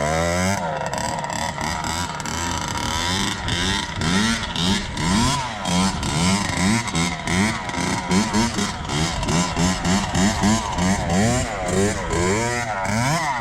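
Kawasaki KX60's small single-cylinder two-stroke engine revving up and falling back over and over, the rises coming in quick succession about every half second from a few seconds in.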